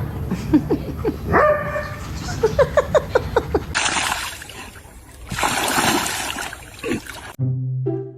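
A dog whining and yelping, with a quick run of short, high, rising cries. About four seconds in comes a stretch of splashing noise, and a short music jingle starts near the end.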